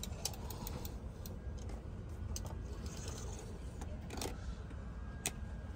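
Steady low hum of an Airbus A380 cabin before departure, with its engines not yet running. Scattered light clicks and clinks sound over it, the sharpest about four and five seconds in.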